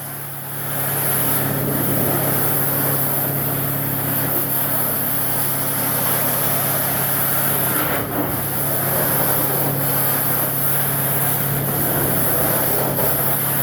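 Truck-mounted carpet extractor's vacuum pulling floodwater out of soaked carpet through the wand: a loud, steady rush of suction air over a constant low hum, with a brief dip about eight seconds in.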